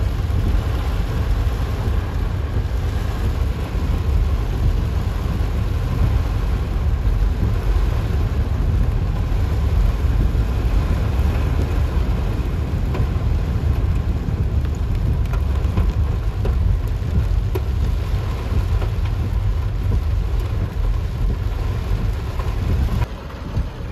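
Heavy rain falling on a car, heard from inside the cabin over a steady low rumble from the moving car.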